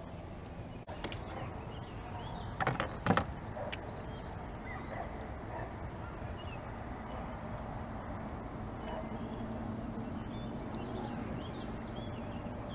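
A few sharp knocks and clatters of fishing gear being handled, loudest about three seconds in, over a steady low hum, with faint short high chirps now and then.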